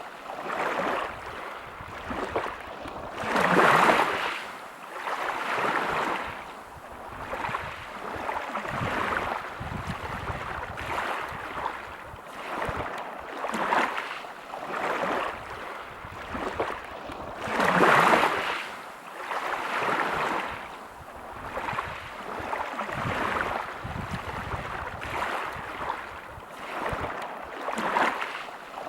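Small waves breaking on a pebble beach, each wash swelling and falling back every two seconds or so, with two bigger surges about four seconds in and again just past halfway.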